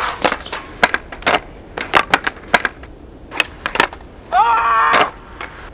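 Skateboard popping and landing on concrete: a string of sharp wooden clacks and wheel slaps as flip tricks are tried and the board hits the ground and clatters away. A short shout a little past four seconds in.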